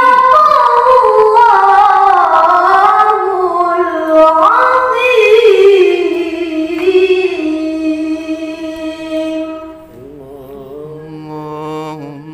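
A boy's voice reciting the Qur'an in the melodic tilawah style into a handheld microphone. It is one long phrase of held, ornamented notes that slide up and down in pitch, and it fades away about ten seconds in. Near the end a fainter, lower voice with a wavering pitch comes in.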